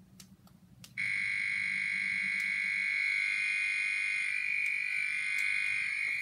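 Electronic sound from a CloudPets talking plush toy's built-in speaker as it is switched on. A loud, steady tone starts suddenly about a second in, holds for about five seconds and cuts off sharply.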